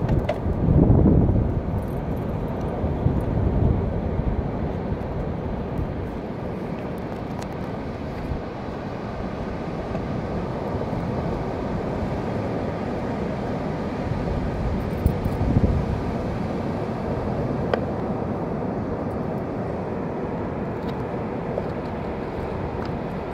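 Wind buffeting the microphone over a steady wash of surf, with stronger gusts in the first few seconds and again past the middle. A few faint clicks sound now and then.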